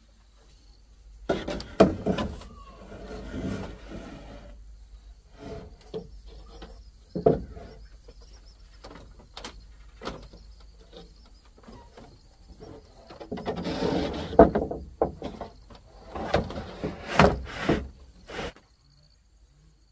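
Irregular knocks, clatters and rustling of objects being handled, loudest about two seconds in and again from about thirteen to eighteen seconds, then stopping.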